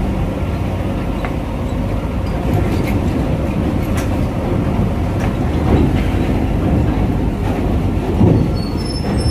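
Heavy diesel truck hauling a long train of coal trailers onto a ferry, a steady low rumble with occasional clanks from the trailers.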